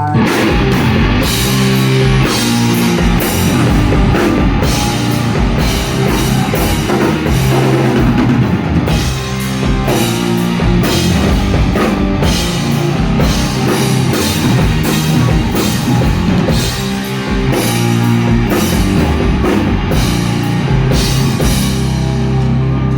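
A rock band playing live, an instrumental stretch with loud distorted guitar, bass and a driving drum kit at a steady beat.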